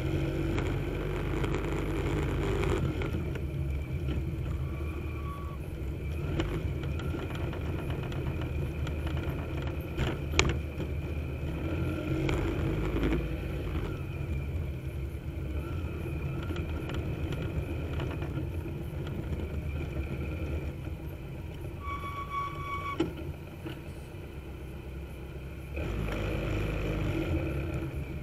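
Steady wind and road rumble from a camera riding on a moving vehicle, with a sharp knock about ten seconds in and a brief high-pitched squeal about twenty-two seconds in.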